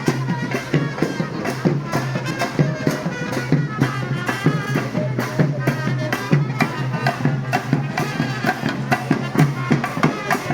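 Traditional procession music: drums beating quickly and steadily, with a reedy wind instrument playing a melody over them.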